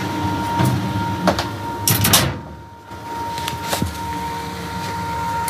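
Steady machine hum with a thin high whine, broken by a few sharp knocks and one louder clatter about two seconds in, as the laser cutter is handled.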